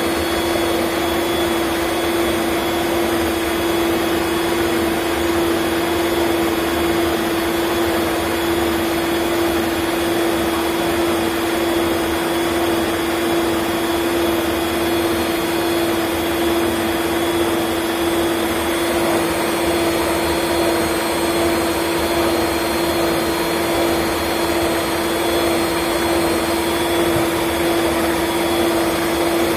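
Electric stand mixer running steadily, its twin beaters whisking egg-yolk and orange batter in a glass bowl: an even motor whir with one strong steady hum that never changes speed.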